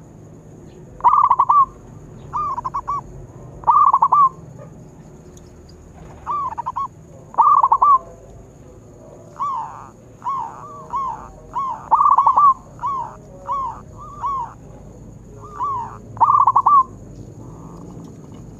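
Zebra dove (perkutut) cooing: a string of short, rolling, trilled coo phrases, some loud and some softer, repeated every second or so with brief pauses, stopping near the end.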